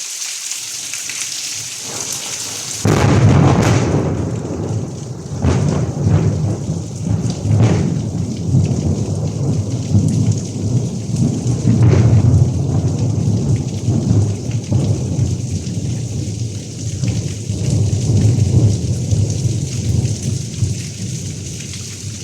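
Steady rain hissing, then about three seconds in a thunderclap breaks suddenly and rolls into a long, loud, deep rumble broken by several sharp cracks.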